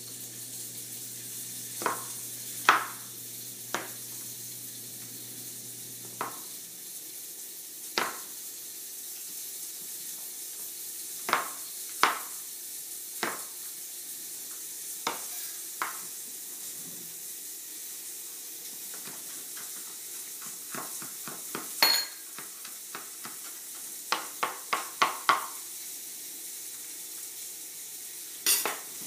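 Steak sizzling steadily in a hot pan, with irregular sharp knocks of a knife cutting garlic on a cutting board, including a quick run of chops late on.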